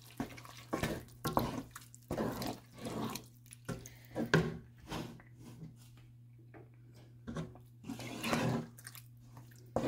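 Thick tomato and ground-chicken sauce being stirred with a wooden spoon in a pot: irregular wet squelches and plops as the spoon works through it, with a quieter stretch midway. A steady low hum runs underneath.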